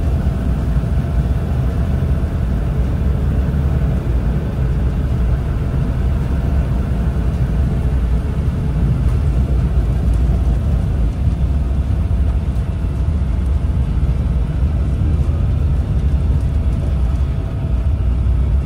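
Douglas DC-3's twin radial engines and airframe rumbling steadily as the aircraft rolls fast along the runway, heard from inside the passenger cabin.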